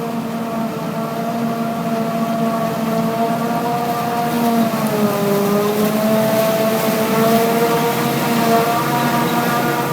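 Diesel engine of harvest farm machinery running steadily. Its pitch dips briefly about five seconds in, as if pulled down under load, and then recovers.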